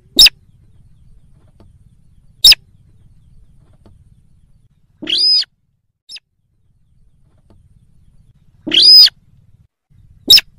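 Slaty-breasted rail's lure call: three short sharp notes spaced irregularly, and two longer, slightly arched calls about five and nine seconds in.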